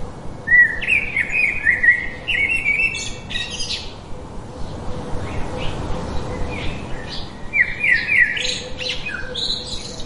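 Blue-gray tanager song: two runs of rapid, squeaky twittering notes, the first starting about half a second in and the second about six and a half seconds in.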